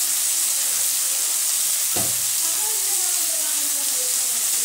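Chopped tomatoes sizzling steadily in hot oil in an aluminium kadai, softening under salt. There is a single knock about two seconds in.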